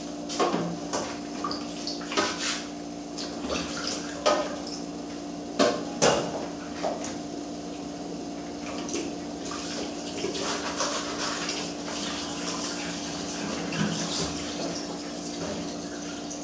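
Water boiling in a stainless-steel pot with a crab in it, bubbling and crackling, over a steady low hum. Scattered sharp clicks and taps come mostly in the first six or seven seconds, and the crackle grows denser later on.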